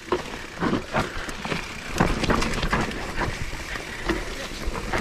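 A mountain bike rolling down a rough dirt singletrack: tyres on the dirt with frequent rattling and knocking from the bike over bumps, and wind rumble on the helmet-mounted microphone.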